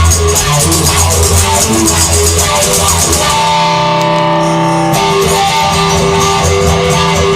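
Instrumental rock music led by guitar, with bass and drums keeping a steady beat. A few seconds in, the drums drop out under a held guitar chord, then come back.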